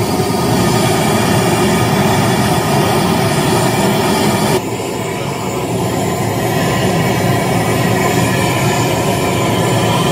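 A loud, continuous rumbling played-back sound, fed straight from a mixing console. The upper range drops suddenly about four and a half seconds in, and it cuts off abruptly at the end.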